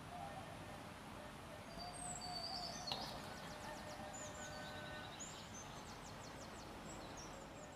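Outdoor ambience with small birds chirping: short high calls and quick trills, mostly in the middle and later part, over a steady background hiss. One light tap about three seconds in.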